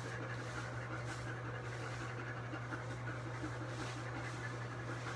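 A German Shepherd panting in the bathtub while being scrubbed, over a steady low hum.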